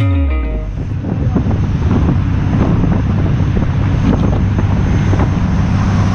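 Boat engine running steadily under way, a constant low hum.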